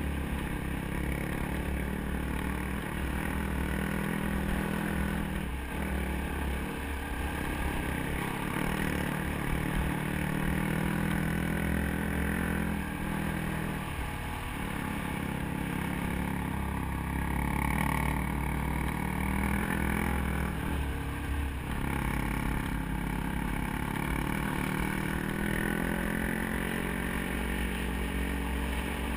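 Dirt bike engine running while riding on a gravel road, heard from on board, with wind rumble on the microphone. The engine note dips briefly about three times and picks up again.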